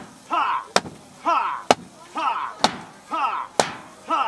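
A wok of fried rice tossed about once a second, each toss ending in a sharp metal clank, four times in all. Between the clanks comes a short rhythmic shout, five in all.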